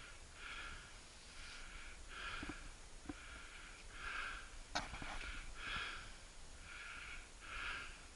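Faint, quick breathing close to the microphone, about one breath a second, with a single sharp click just past halfway.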